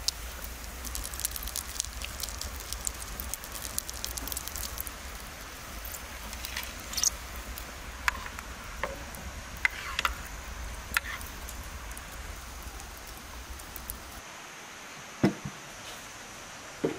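Wood fire crackling in a mud oven over a low steady rumble, with a few sharper clinks from an enamel bowl and its spoon being handled. Near the end the fire sound cuts off and a single knock follows.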